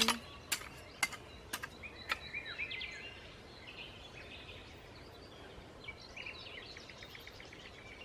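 A hand hoe chopping into the soil five times, about half a second apart, in the first two seconds. Small birds chirp on and off throughout.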